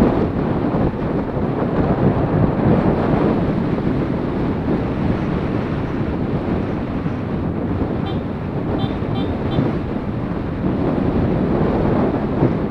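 Wind rushing over the riding camera's microphone, with a Yamaha Exciter 150 motorcycle's engine running beneath it at a steady cruise.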